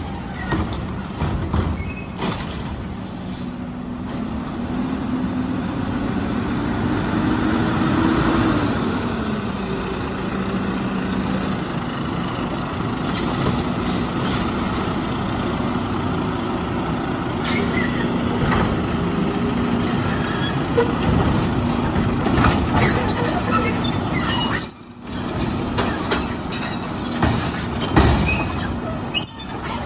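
Mack refuse truck with an automated side-loader arm: its diesel engine running steadily as it drives up, the pitch rising about seven seconds in and falling back. Several metallic clanks follow, the loudest near the end.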